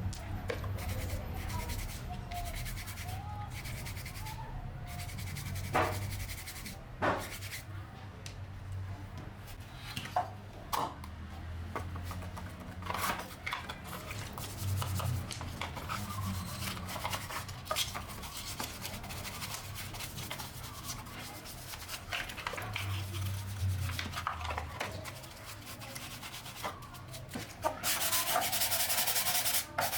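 Hand workshop sounds while restoring an electric blower: scattered clicks and knocks of parts and tools being handled, then steady sanding or rubbing starting near the end.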